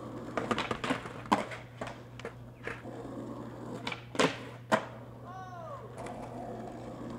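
Skateboard wheels rolling over rough pavement with rattling clicks, then two loud sharp clacks about half a second apart a little after four seconds in, as the board hits the concrete ledge and the ground. A brief high rising-and-falling squeal follows.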